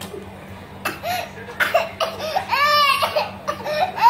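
Young child crying in short broken cries that grow louder from about a second in.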